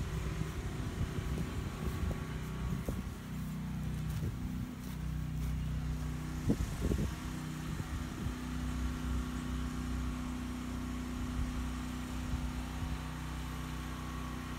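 Generator engine running steadily with a low, even hum, with a couple of brief bumps about six and a half seconds in.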